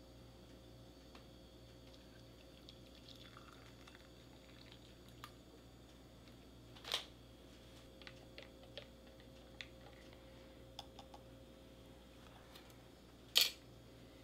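Stirring hot chocolate in a mug: scattered small clicks and taps of the stirrer against the mug over a low steady hum, with two sharper clicks, one about seven seconds in and a louder one near the end.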